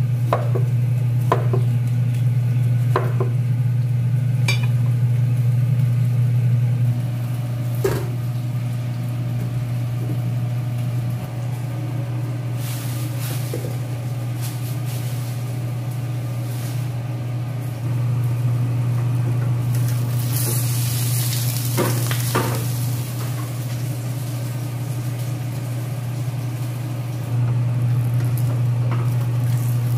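Steady low hum of a kitchen range hood fan, with a few knife strokes through bitter melon onto a cutting board in the first several seconds. Later a fish piece sizzles as it fries in oil in a nonstick pan, loudest in two stretches near the end.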